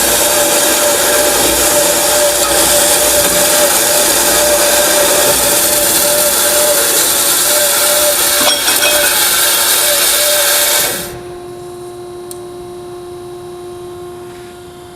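BMT WK-500DSA 14-inch horizontal metal-cutting band saw running through a cut: a loud, steady sawing noise with a high whine. It cuts off suddenly about eleven seconds in, leaving a quieter steady hum.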